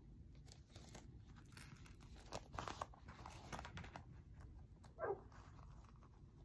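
Faint rustling, crinkling and small clicks of a vinyl pouch being handled while a rivet is pushed through its punched hole, with a brief falling sound about five seconds in.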